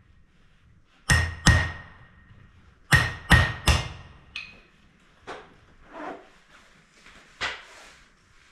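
Hammer blows driving a punch into flat iron on an anvil, with a ringing note hanging after the heavy blows. There are two heavy blows, then three more, then a few lighter taps.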